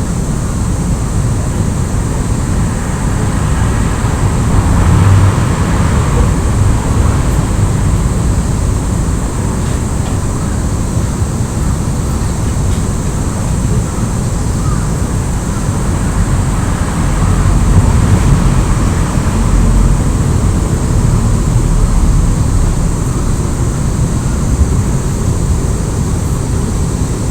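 Steady low rumble of a hot-water heater running, a continuous mechanical drone that swells louder about five seconds in and again around eighteen seconds.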